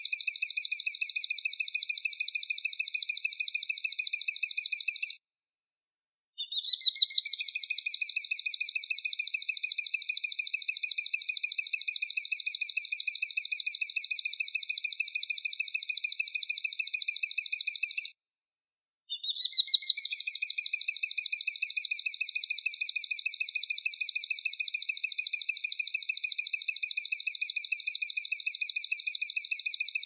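An eagle's high, fast chattering call: a rapid, even string of notes running in long bouts. It stops twice for about a second, about 5 s and 18 s in, and each new bout begins with a short upward sweep.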